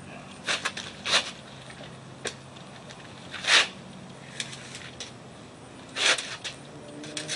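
A retractable steel tape measure being pulled out and held against a tyre: a string of separate sharp clicks and clacks from the blade and case, about a second or two apart.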